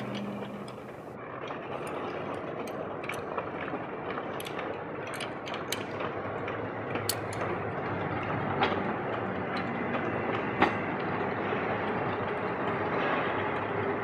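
Steady rumbling background noise with scattered sharp metallic clicks, a dozen or so, from a socket wrench and lug bolts being worked on an alloy wheel.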